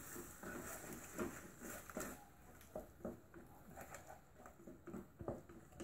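Irregular soft knocks and scrapes of a utensil in a frying pan as a ketchup-coated filling is stirred and mixed.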